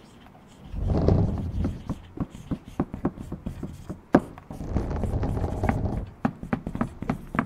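Foley sound effects: a run of irregular knocks and clicks, with low rumbling swells about a second in and again from about four and a half to six seconds in.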